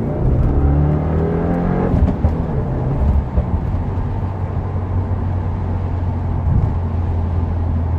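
Stage 1 tuned 2015 Subaru WRX turbocharged flat-four under full-throttle acceleration in first gear, heard from inside the cabin. The revs climb for about two seconds, then drop with the upshift, and the engine settles into a steady low drone.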